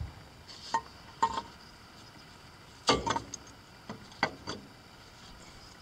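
Cast-iron exhaust manifold clinking and knocking against the engine block and its studs as it is worked into place by hand on a Willys F134 F-head engine: about six sharp metal clinks, the loudest about three seconds in.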